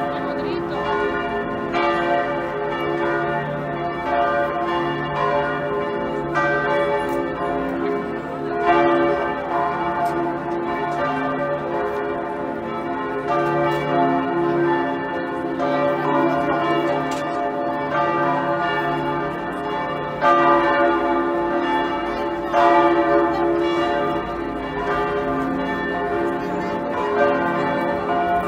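Church bells ringing a continuous peal, with fresh strikes every couple of seconds ringing on into one another.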